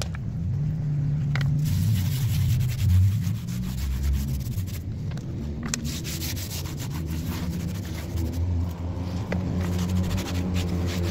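Air compressor running with a steady low hum, under the hiss of a paint spray gun and a few sharp clicks.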